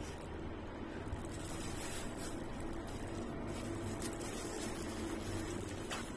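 A steady low hum and hiss of room noise, with faint wet chewing and the crinkle of a plastic food-handling glove as rice and fried chicken are eaten by hand. A faint click comes near the end.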